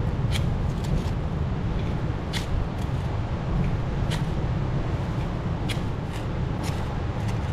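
Steady low wind rumble on the microphone with ocean surf behind it. Over it, about half a dozen sharp irregular snaps and crackles as a campfire is being lit.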